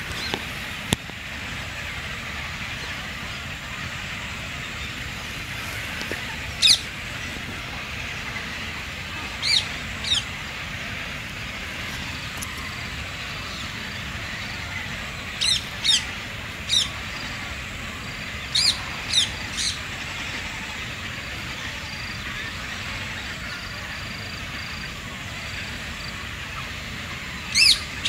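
Birds calling at a treetop waterbird colony: about a dozen short, sharp, high calls that drop in pitch, some singly and some in quick runs of two or three, over a steady background hiss. A single sharp click sounds about a second in.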